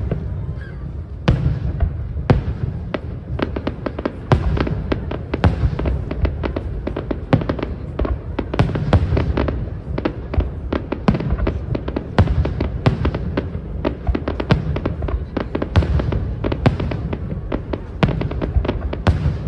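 Aerial fireworks display going off: a dense run of sharp bangs and crackles, several a second, over a steady low rumble.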